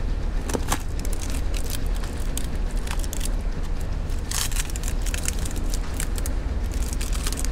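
A cardboard cookie box being opened by hand: crackling and rustling as the flap is pulled open and a plastic tray of wrapped cookies is slid out, with a longer rasp about halfway through. A steady low rumble runs underneath.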